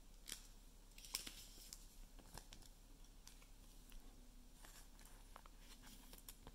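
Faint, scattered ticks and short rustles of glossy trading cards being handled and shuffled by hand.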